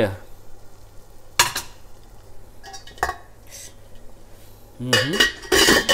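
Stainless steel cookware clanking: a sharp metallic knock with a short ring about a second and a half in, a small click around three seconds, and a louder clatter near the end as the lid goes onto the pot.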